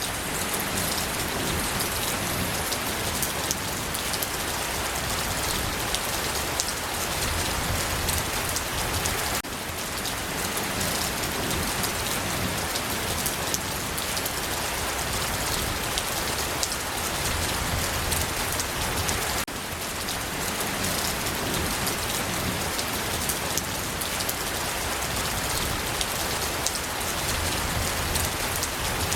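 Steady rain falling, an even hiss with many small drops pattering on a surface. The level dips briefly twice, about ten seconds apart.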